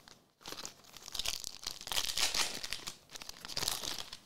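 Foil wrapper of a 2024 Elite football card pack being torn open and crinkled: a run of crackling rustles, loudest around the middle.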